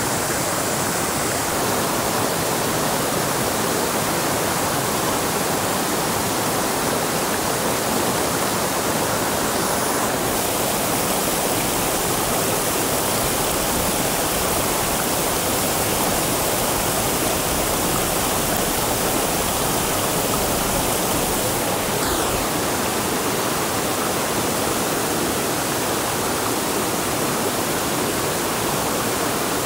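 Steady rushing of water: an even, loud hiss without a break.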